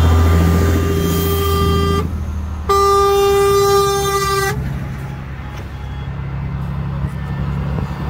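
Heavy truck tractor units passing close with their diesel engines running, and a truck horn sounded twice: a held blast in the first two seconds, then a louder one of about two seconds. The engine rumble dips as the trucks pass.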